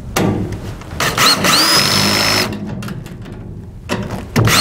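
Cordless drill driving locking nuts onto small machine bolts: the motor whine rises and holds steady for about a second and a half, then stops, and starts again near the end. A short clatter comes right at the start.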